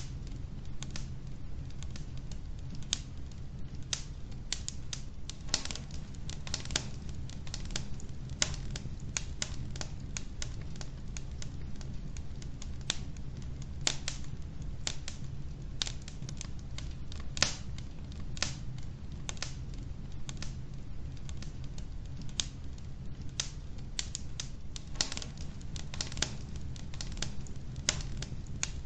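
Wood logs burning in a fireplace: frequent, irregular sharp crackles and pops over a steady low rumble, with a few louder pops here and there.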